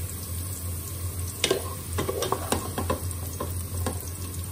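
Bitter gourd slices sizzling in hot oil in a metal pan, almost fried to light brown, while a wooden spoon stirs and scoops them, knocking and scraping against the pan several times, the sharpest knock about a second and a half in.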